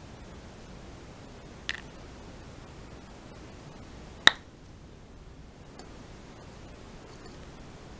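Two sharp clicks of a plastic syringe tip knocking against a clear plastic cup: a light one near the second second and a louder one a little past four seconds in, over a steady faint hiss.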